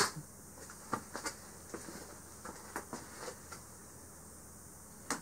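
Quiet room tone with a few faint, scattered small clicks and taps in the first few seconds, and one sharper click near the end.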